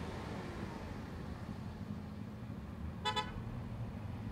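Low, steady running of a pickup truck's engine as it tows a car on a strap, with two quick toots of a vehicle horn about three seconds in.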